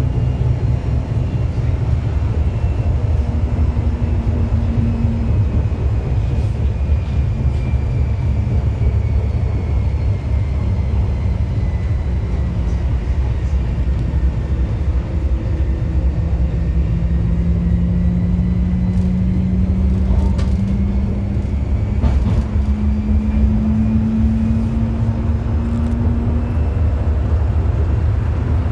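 Electric Forchbahn S18 light-rail train running on street track, heard from the driver's cab: a steady low rumble of wheels on rails, with the electric drive's whine slowly rising and falling in pitch. A few sharp clicks come past the middle.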